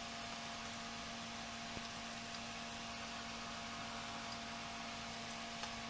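Steady hum and hiss of room background, with a couple of faint small clicks.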